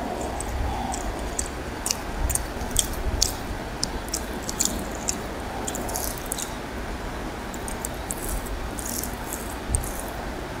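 Eating sounds, close up: rice and curry being mixed and squeezed by hand, with chewing. Many short, wet smacks and squishes come at irregular moments over a steady background hiss.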